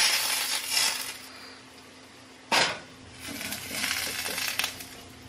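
Kitchen clatter as dishes and small hard items are handled on a counter, with one sharp knock about halfway through and scraping and rustling after it.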